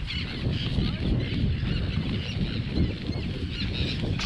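Many terns calling overhead in short, harsh, repeated cries over a steady low rumble of wind noise.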